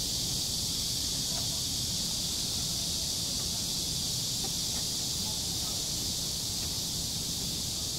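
Steady outdoor ambience: a constant high-pitched hiss with a low rumble, the sound of wind on the microphone, unchanging throughout.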